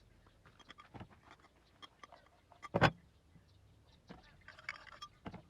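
Scattered small clicks and taps, with one loud, sharp knock a little under three seconds in.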